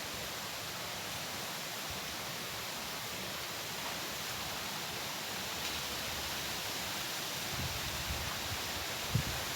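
Steady rush of wind and trickling water, with a few soft low thumps near the end.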